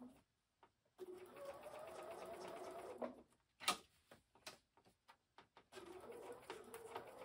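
Bernina B 790 sewing machine stitching at a steady speed, a faint motor hum with rapid needle ticking. It stops about three seconds in, a few sharp clicks follow while the fabric is shifted, and it starts stitching again near six seconds.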